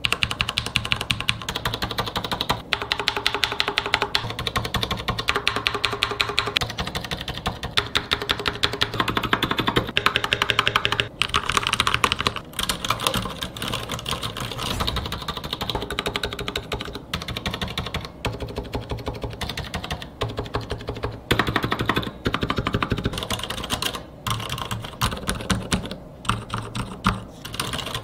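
Fast continuous typing on Marspro mechanical keyboards, comparing stock unlubricated switches with fully lubed red switches, with a few short pauses between bursts. The stock switches add a ringing 'ding' from their springs that the lubed switches lack.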